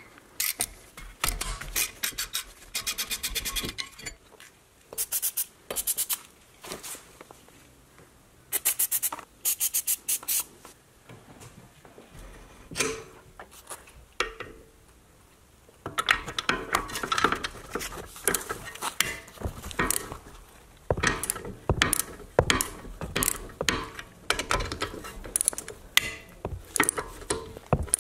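Hand ratchet clicking in quick runs as a 6 mm hex socket backs out the brake disc's retaining screw. From about halfway through come denser ratchet clicks and metal tool clatter as the wheel hub's 18 mm bolts are loosened.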